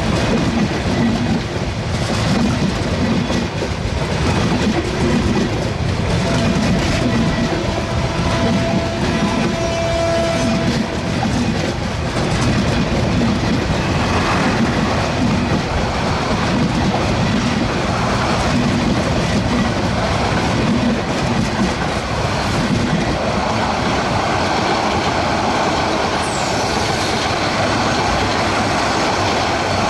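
Bangladesh Railway intercity express passenger coaches passing close by at speed, their wheels running loud and steady on the rails.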